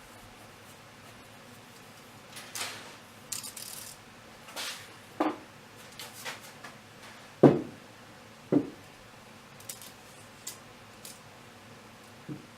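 Handling noises: a few rubbing scrapes, then scattered knocks, the loudest a thump a little past halfway, followed by a second knock a second later and a few light taps.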